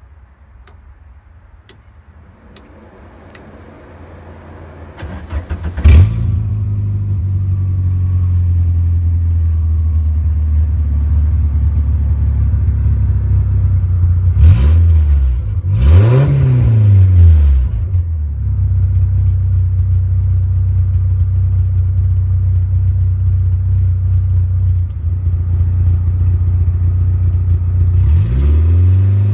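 A few light clicks of switches being flipped, then the VW 2.0 ABA 8-valve four-cylinder cranks for about two seconds and catches with a sharp bang about six seconds in, on its first start after a full rewire. It settles into a steady idle, is revved up and back down twice in quick succession about halfway through, and is blipped again near the end.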